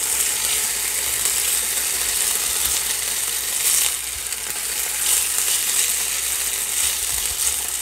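Potato sticks frying in oil in a pan, a steady sizzle, while a spatula stirs and turns them with a few soft scrapes and knocks against the pan.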